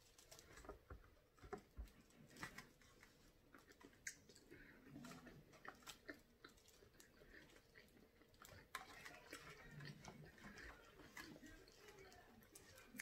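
Faint, irregular clicks and crackles of seafood being peeled by hand, shrimp and crab-leg shells snapping and being picked apart over foil pans.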